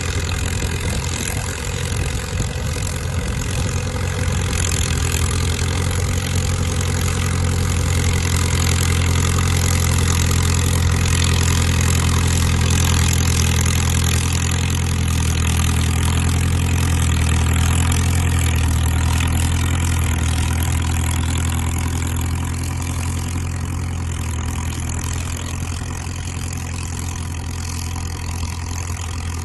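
Caterpillar crawler dozer's diesel engine running steadily, a little louder through the middle.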